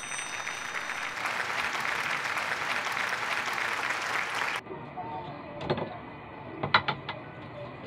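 Applause and cheering that starts and cuts off abruptly after about four and a half seconds, an added sound effect. Then a few sharp clinks of ceramic plates being set down on a counter near the end.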